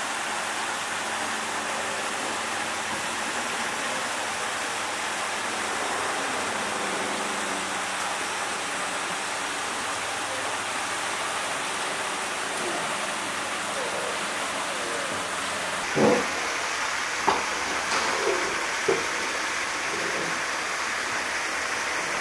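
Steady, even rushing hiss. About 16 to 19 seconds in come a few short knocks and faint voices.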